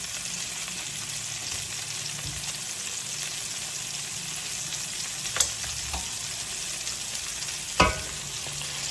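Meatballs sizzling steadily as they brown in a frying pan, with two sharp knocks, one a little past halfway and a louder one near the end.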